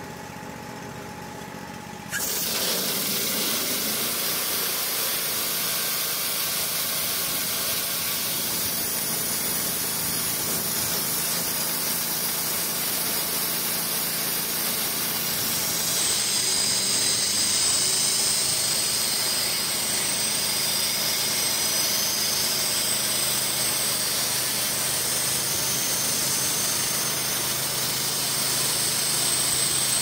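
Wood-Mizer portable band sawmill running. The engine idles, then about two seconds in it comes up to full cutting speed with a sudden jump to a loud, steady hiss. About halfway through, the band blade enters the log and a high whine joins as it saws lengthwise through the wood.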